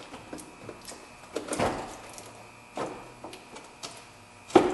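A car battery being set into its tray and shifted into place under the hood: a few separate dull clunks and knocks, the loudest a sharp knock near the end.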